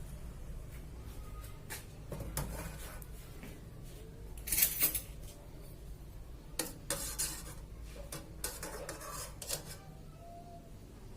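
Metal cooking pot and utensils clattering and knocking as a pot of boiled water is lifted off the stove and handled, in scattered short knocks with the loudest clatter a little before halfway.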